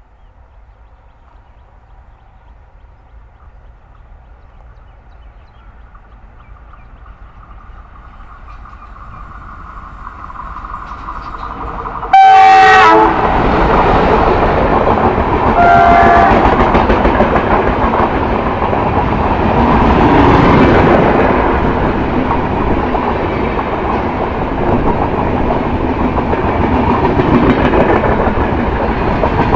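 Indian Railways WDG3A diesel-electric locomotive (ALCO 251 engine) approaching, its engine and wheel noise growing steadily louder; about twelve seconds in it gives one loud horn blast, the loudest moment, and a shorter horn note follows a few seconds later. Then the LHB coaches pass close by with a steady rumble and clickety-clack of wheels on the rails.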